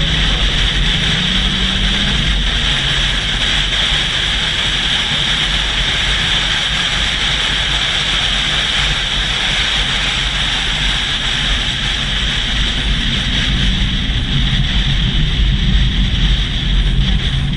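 Steady rush of wind and a low engine rumble from a moving vehicle, picked up by a GoPro held on a suction-cup mount, with wind buffeting the microphone.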